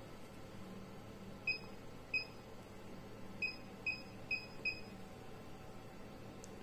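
HIFU machine's touchscreen giving short electronic key beeps as its setting arrows are tapped: six beeps, two spaced apart, then four in quicker succession.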